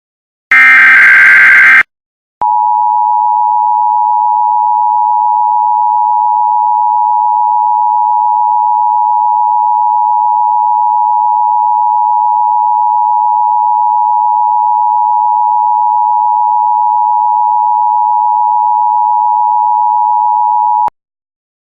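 Emergency Alert System tones heralding an Emergency Action Notification. A short screeching burst of SAME header data comes first. Then, from about two seconds in, the two-tone attention signal (853 and 960 Hz together) holds steady for about eighteen seconds and cuts off sharply.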